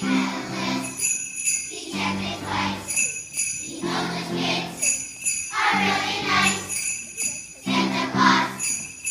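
Children's choir song with jingle bells ringing in bursts about every two seconds, alternating with low steady chords of the accompaniment.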